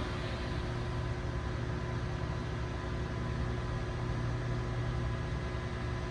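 Hydraulic elevator's power unit running: the pump motor hums steadily and evenly.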